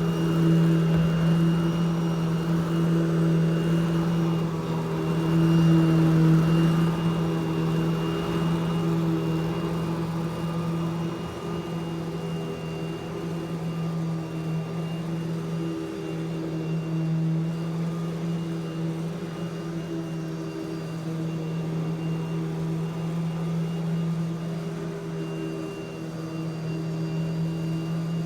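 Eureka Smart Vac upright vacuum cleaner running steadily: a motor hum with a faint high whine. It swells louder during the first several seconds, then settles to a steadier level.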